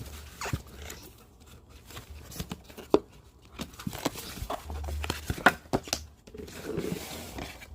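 Packaging of a trading-card bundle box being torn and opened by hand: scattered crinkling and tearing, small clicks, a couple of sharper snaps and some low thuds of handling.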